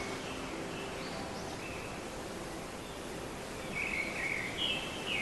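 Outdoor ambience: a steady hiss with small birds chirping, a couple of short chirps about a second in and a quick run of chirps near the end.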